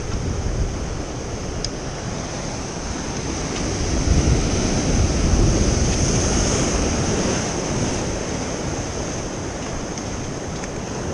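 Ocean surf breaking and washing over and around shoreline rocks in a continuous rushing wash. A bigger surge builds about four seconds in and eases off a few seconds later.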